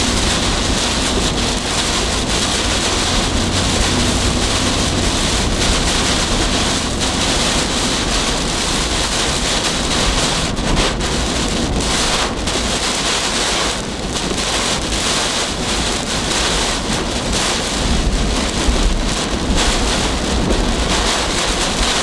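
Heavy wind-driven rain pelting a car's windshield and body in hurricane-force straight-line winds, heard from inside the car as a loud, unbroken rush. Under it runs a low, shifting rumble of wind buffeting the vehicle.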